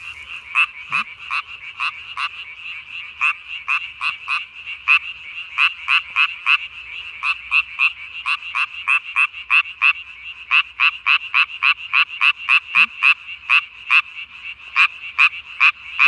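Japanese tree frog calling: a loud, fast series of short, sharp croaks, about four a second, in runs broken by brief pauses.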